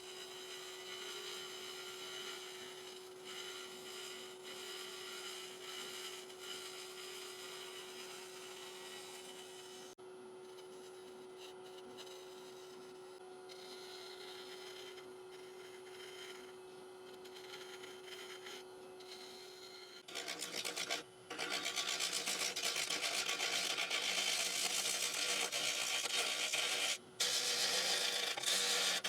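Wood lathe running with a steady hum. About two-thirds of the way through, a louder, rasping hiss sets in as a bowl gouge cuts the outside of a spinning oak bowl blank, broken twice by short pauses.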